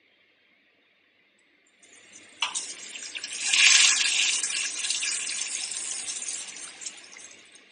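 Toilet flushing: a rush of water that starts suddenly about two seconds in, swells, then trails off over several seconds.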